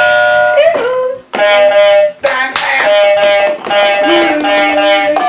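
Novelty buzzer buttons being pressed one after another, each press setting off a short electronic tone or jingle, about four or five in a row.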